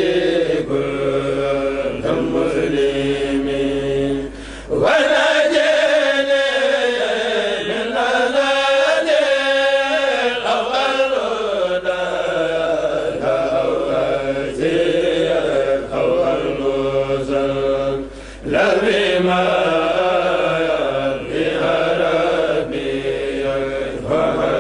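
Kourel, a group of men chanting a Mouride khassida together without instruments, into microphones. The singing pauses briefly about four and a half seconds in and again near eighteen seconds, and a higher, wavering melodic passage follows the first pause.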